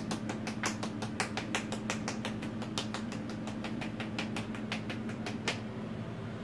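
A rapid run of sharp clicks, about nine a second, that stops suddenly about five and a half seconds in, over a steady low hum.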